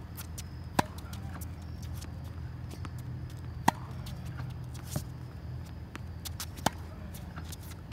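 Tennis ball struck by a racket on forehand drives: three loud, sharp hits roughly three seconds apart, with softer ball bounces between them. A steady low hum runs underneath.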